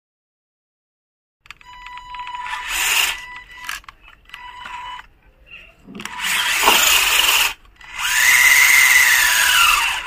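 Small RC buggy's electric motor and gearbox whining in repeated bursts of throttle as it strains to pull a trailer loaded with a heavy brick. In the last and longest burst the whine rises and then falls in pitch.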